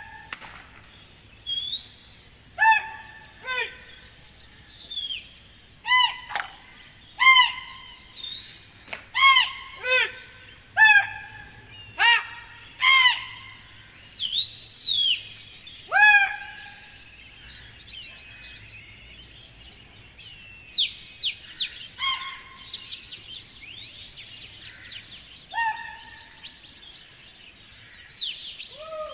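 Birds chirping: short calls that each sweep down in pitch, repeating about once a second, with a quicker run of higher calls near the end.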